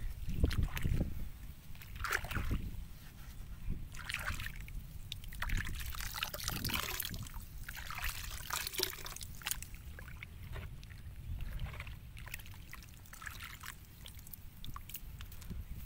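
A hand stirring and kneading a thick, frothy molasses and rice-bran brew in a tub, making irregular wet sloshing and splashing.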